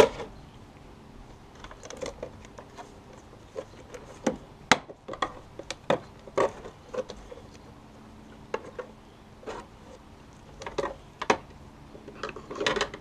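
Plastic clicks, scrapes and a few sharp snaps as a 2004 Yukon door mirror's glass and its plastic backing plate are pried off the housing's retaining tabs.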